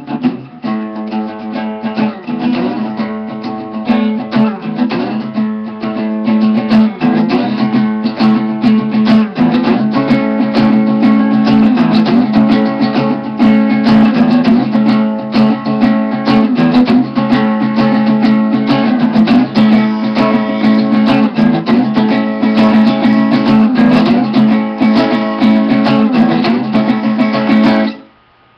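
Guitar being strummed and picked over a steady held low note, stopping abruptly near the end.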